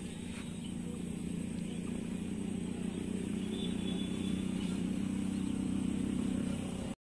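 A low engine hum, likely a passing motor vehicle, growing steadily louder and then cutting off abruptly near the end.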